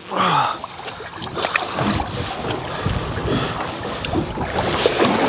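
Wind buffeting the microphone over water lapping against the hull of a small open boat at sea, with a few faint knocks.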